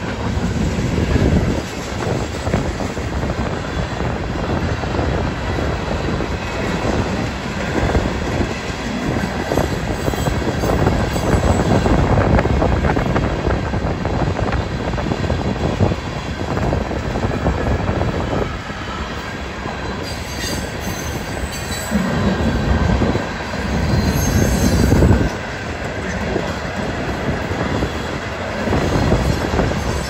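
Freight cars of a long mixed freight train rolling past: tank cars, covered hoppers and boxcars, wheels clattering over the rail joints. A high wheel squeal comes in for a few seconds about two-thirds of the way through. Strong wind buffets the phone's microphone throughout.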